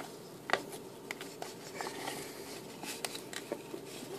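Fingers working a metal staple out of a paper envelope: soft paper rustling with a few faint, scattered clicks.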